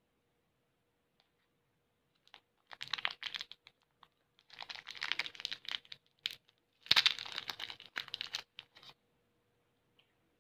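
Plastic candy wrapping being crinkled and torn open by hand, in three bursts of crackling with scattered small clicks between them; the loudest burst is just before the middle.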